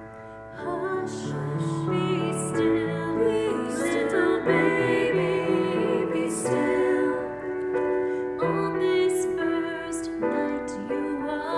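Voices singing a slow, gentle Christmas song with vibrato over piano accompaniment. After a brief hush in the first half second, the singing and playing carry on.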